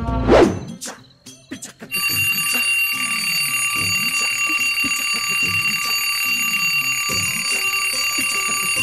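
A wake-up alarm ringing, a steady high shrill ring with a fast flutter, starting about two seconds in and stopping near the end. It plays over background music, just after a short whooshing sweep.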